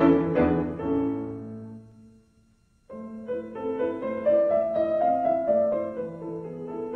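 Piano music on the soundtrack: one passage dies away to silence about two seconds in, and a new piano passage starts abruptly about three seconds in.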